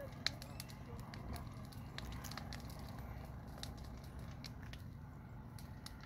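Brush fire crackling: dry scrub and small trees burning, with irregular sharp pops, the loudest just after the start, over a steady low rumble.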